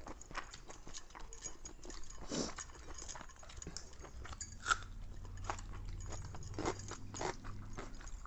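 Close-up eating sounds: chewing and many small, wet mouth clicks and smacks as rice with jackfruit curry is eaten.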